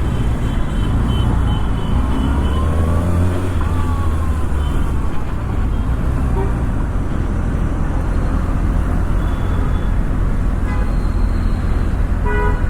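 Kawasaki ZX-6R's inline-four engine pulling away on the road, its pitch rising twice in the first few seconds as it revs up through the gears, over steady wind and traffic noise. Short horn beeps from traffic sound near the end.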